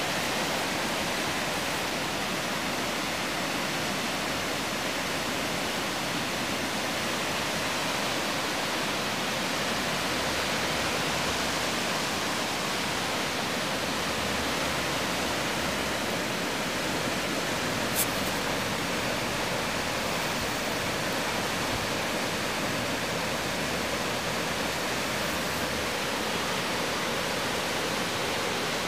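Flood-swollen river rushing through a rocky gorge: a steady wash of whitewater rapids. A single brief click about two-thirds of the way through.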